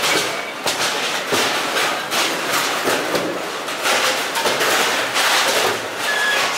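Steel dishes clattering without pause as they are tossed, stacked and washed, with many sharp metallic clanks overlapping in a loud din.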